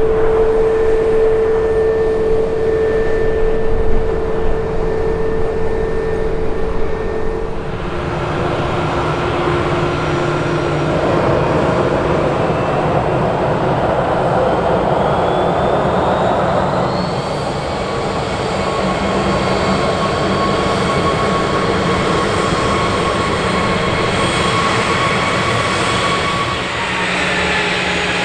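Airbus A320's CFM56 turbofans at taxi power, a steady whine on two pitches. About eight seconds in, it changes to a Cessna Citation Longitude's twin turbofans on approach and landing: a rushing jet sound whose whine rises in pitch partway through and then holds.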